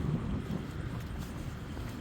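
Outdoor street ambience: wind buffeting the microphone as a steady, uneven low rumble, with faint traffic and a few faint ticks.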